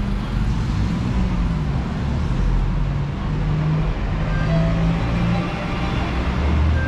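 City street traffic, with a motor vehicle's engine running close by: a low hum that shifts slightly in pitch over the general noise of the road.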